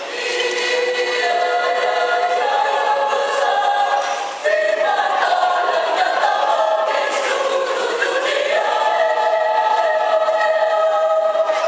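Mixed choir of men's and women's voices singing held chords. About four and a half seconds in, the singing dips for a moment, then the voices come back in louder.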